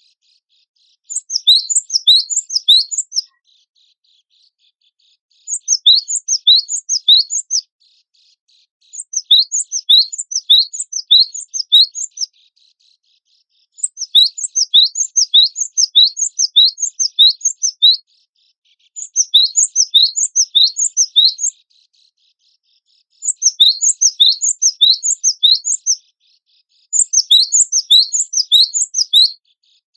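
Gelatik batu (cinereous tit) singing: seven bursts of quick, repeated, high, upward-sweeping notes, each burst lasting two to four seconds, with brief pauses between them.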